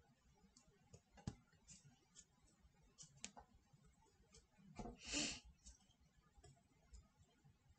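Near silence: room tone with a few faint clicks and one short soft noise about five seconds in.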